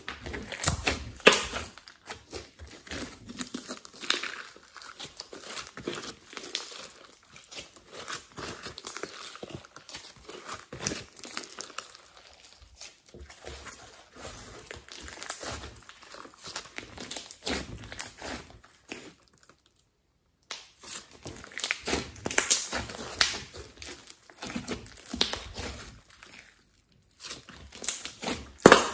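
Hands kneading, stretching and pressing a thick, sticky mixed slime, making dense irregular crackles, clicks and tearing sounds. The sound cuts out briefly twice, about twenty and twenty-seven seconds in.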